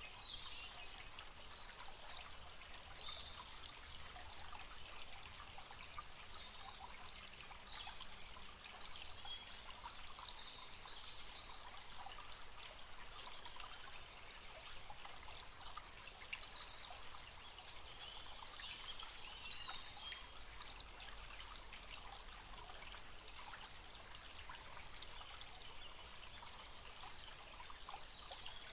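Small forest stream trickling and babbling steadily, with short high bird chirps scattered throughout.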